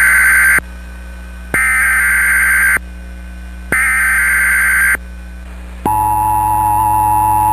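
Emergency Alert System SAME header: three roughly one-second bursts of digital data tones with short gaps between them, then, about six seconds in, the steady two-tone EAS attention signal begins. These tones mark the start of a new emergency alert broadcast.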